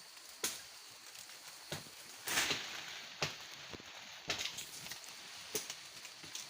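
Irregular snaps and rustles of twigs and leafy brush, about one every half second to a second, with a longer rustle about two and a half seconds in.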